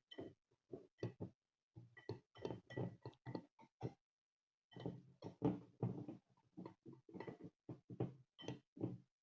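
A spoon stirring and scraping a thick mix of honey and bitter kola in a container: quick, uneven strokes, about two or three a second, with faint clinks, pausing briefly about four seconds in.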